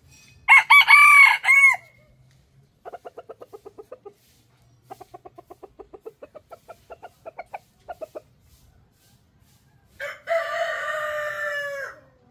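Chickens calling: a loud burst of short crow notes, then two runs of rapid clucking at about ten pulses a second, then a rooster's long held crow of about two seconds that drops slightly in pitch as it ends.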